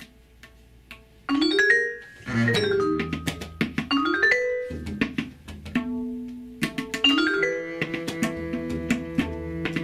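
Yamaha vibraphone struck with mallets: after a quiet first second, quick rising runs of notes, then from about halfway many notes left ringing together. A bowed double bass sounds low underneath.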